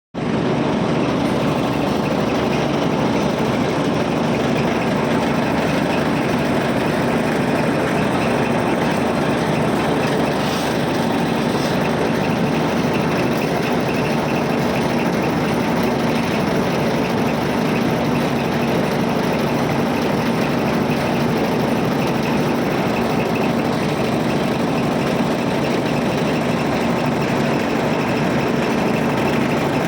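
A machine's engine running steadily at a constant speed, with no change in pace.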